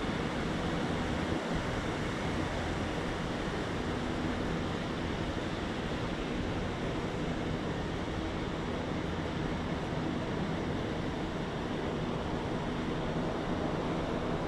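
Steady, even rush of outdoor background noise with a faint low hum, picked up by a phone microphone, with no distinct events standing out.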